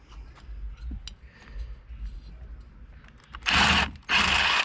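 Faint clicks and light knocks of engine parts being handled during a teardown, then two loud, even bursts of hiss, each about half a second long, near the end.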